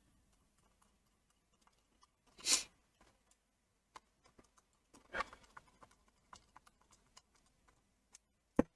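Small screws being driven back into a computer mouse's plastic shell with a screwdriver: faint scattered ticks and clicks, two short scraping rustles, and one sharp click near the end.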